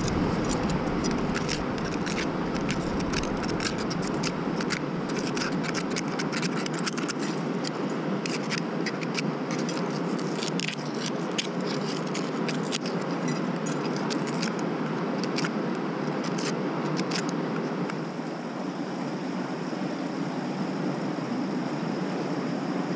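Metal crevicing tool scraping and clicking against bedrock as it digs packed material out of a narrow crack, many sharp scrapes that stop about three quarters of the way through. A steady rush of river rapids runs underneath.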